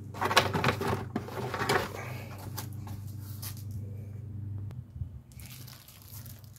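Cardboard filter box and packaging being handled, crinkling and crunching for the first two seconds and again briefly near the end. A steady low hum runs underneath and stops a little before the end.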